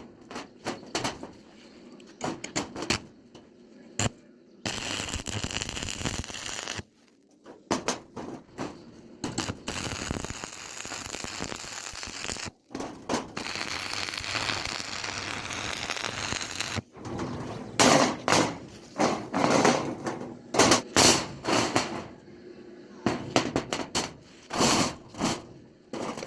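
Electric welding arc crackling in several runs of a few seconds each, then a series of loud knocks in the second half.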